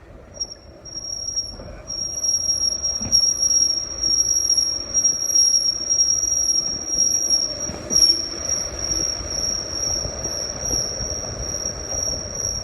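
Ford Flex making a steady high-pitched squeal, one unwavering tone that comes in about half a second in and holds, over low rumbling vehicle noise.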